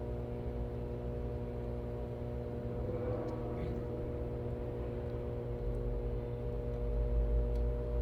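A steady mechanical hum with several fixed tones over a low rumble, swelling slightly near the end.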